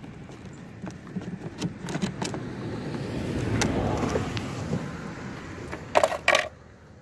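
Handling noise around an RC boat hull: light clicks and rattles, a rush of noise that swells and fades in the middle, and two sharp clattering knocks about six seconds in, as the canopy comes off.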